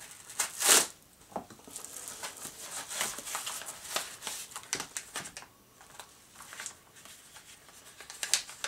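A small manila envelope slit open with a blade, loudest just under a second in, then irregular rustling and crinkling of paper as a folded paper packet is pulled out and handled.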